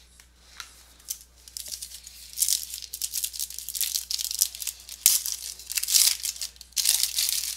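Plastic card wrapping crinkling and crackling in uneven bursts as trading cards are handled and unwrapped.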